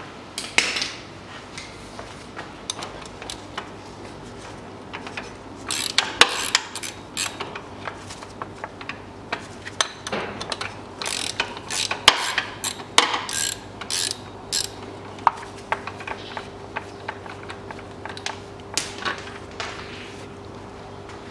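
Ratchet wrench clicking in irregular runs as bolts are turned out of the engine's lower timing cover, with metal tool clinks, over a faint steady hum.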